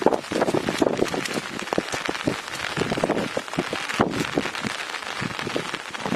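Rain falling, with many irregular drops striking a surface close to the microphone.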